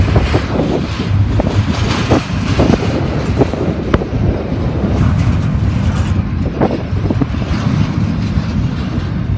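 Double-stack intermodal freight train of articulated container well cars rolling past: a steady low rumble of steel wheels on rail, with sharp clanks and clicks now and then.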